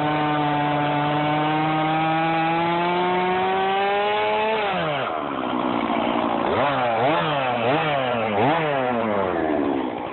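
Stihl MS461 two-stroke chainsaw with a 20-inch bar sawing dead black locust at steady high speed, its pitch creeping slowly up, then dropping off about halfway through. After that the engine speed rises and falls over and over, about five times.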